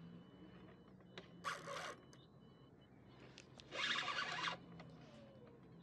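Fishing reel drag buzzing in two short runs of rapid clicks, one about a second and a half in and a louder one near four seconds, as a hooked red drum pulls line off the reel.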